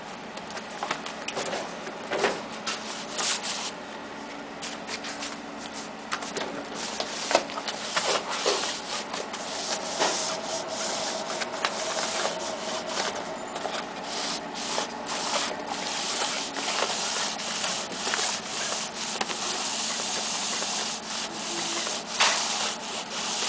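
Continuous rubbing and scratching noise dotted with many short light clicks and taps, a little louder in the second half.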